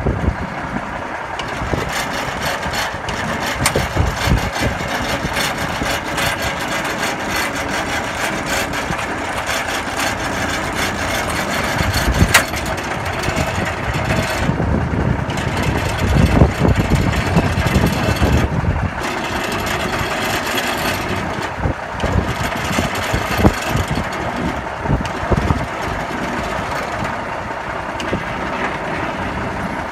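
Heavy trucks' diesel engines running steadily, with a few sharp knocks over the top.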